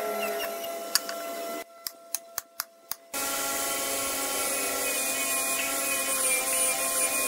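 Small handheld rotary tool running with a steady whine against wood. The whine breaks off about a second and a half in, a few sharp clicks follow, and a steady motor whine with hiss starts again about three seconds in.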